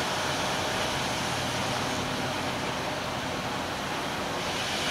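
Steady, even rush of churning water pouring through a concrete spillway.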